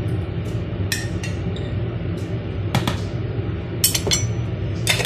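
A metal utensil clinking and knocking against a glass jar of capers as they are scooped out, in a string of short, sharp clinks over a steady low background hum.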